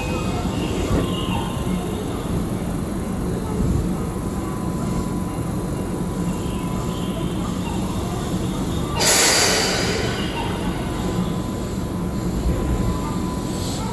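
Keihan 6000-series eight-car electric train pulling out of the platform, with a steady rumble of motors and wheels on the rails and a faint steady whine. A short loud hiss comes about nine seconds in.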